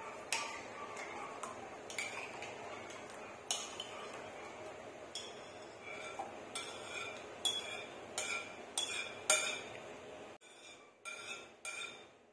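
A spoon clinking and scraping against a mixing bowl as a thick cream mixture is scraped out of it. Short ringing clinks, scattered at first, then coming about twice a second through the second half.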